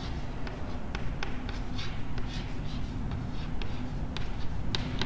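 Chalk writing on a blackboard: a run of short, irregular taps and scratching strokes as letters are written, the sharpest tap near the end.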